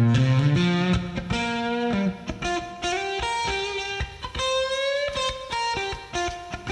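Background music: an electric guitar playing a melodic solo line with note bends, between sung verses of a blues-style song.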